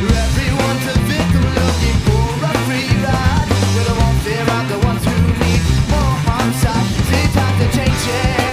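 Studio recording of a rock band playing a song: drum kit, bass and electric guitar, with a singer's voice over them.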